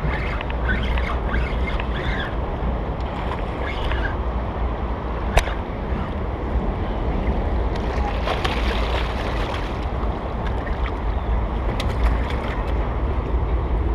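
Fast-flowing river rapids rushing steadily, with a low wind rumble on the microphone. There is one sharp click about five seconds in, and a brighter hiss around eight to nine seconds in.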